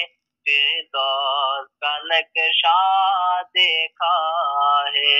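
A man singing an Urdu devotional manqabat unaccompanied, in short held phrases with a wavering vibrato and brief silent breaks between them.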